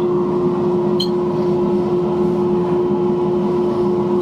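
Steady hum of an electric motor running in the shop, one constant tone over a drone, with a single light metallic clink about a second in.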